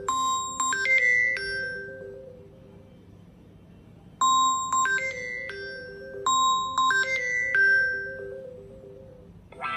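A Samsung Galaxy A06 ringtone previewed on the phone's speaker: a chiming melody of bell-like notes over a soft repeating figure. It stops about two seconds in and starts again about four seconds in.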